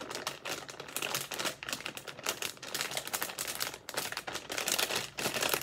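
Crinkly plastic mystery bag being handled and squeezed in the hands: a dense, irregular crackle as the plush toy inside is felt through it.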